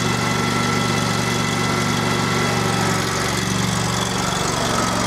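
Westwood T1800 garden tractor engine running with a steady note.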